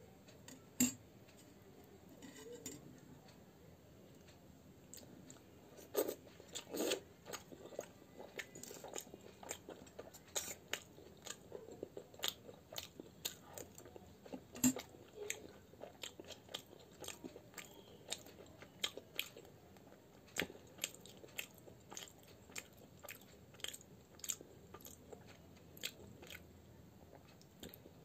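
A person chewing and biting fried kachori dipped in potato curry, with frequent short crunches and mouth clicks at an irregular pace.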